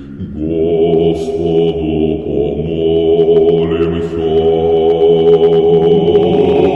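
Religious chant: several voices singing long held notes together over a steady low drone. A new, louder phrase comes in about half a second in.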